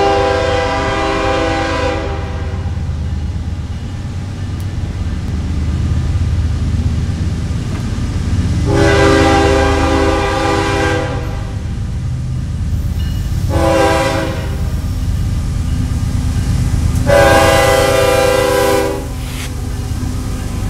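Diesel freight locomotive's air horn sounding the grade-crossing signal, long, long, short, long, the first blast already under way and ending about two seconds in. A steady low rumble of the approaching train runs underneath.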